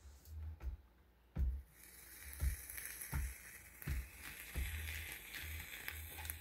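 Centre sparkler fuse of a musical lotus-flower birthday candle hissing as it burns, starting about two seconds in, with a few soft knocks.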